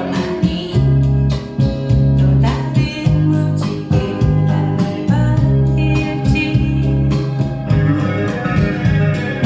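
Blues song with guitar and singing, played back on a hi-fi system: a Baroque turntable, a 300B tube amplifier and Focal loudspeakers.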